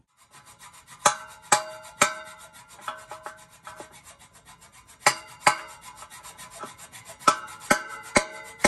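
Hand hacksaw cutting across a steel pipe: a steady rasp of the blade's teeth on the metal, with louder sharp strokes that make the pipe ring, in clusters about a second in, about five seconds in and near the end.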